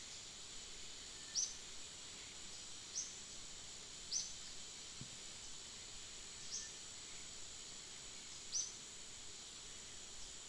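Forest ambience: a steady high insect drone, with a short, high, falling chirp repeating about five times, every one to two seconds.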